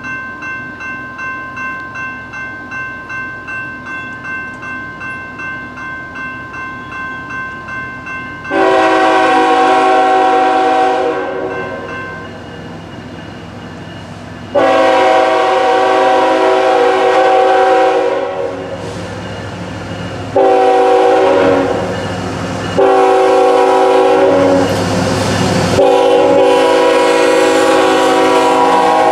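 Railroad crossing bell ringing about twice a second, then a Norfolk Southern freight locomotive's air horn sounding the grade-crossing signal in four blasts, long, long, short, long, the last running on. The train's low rumble grows underneath as it nears.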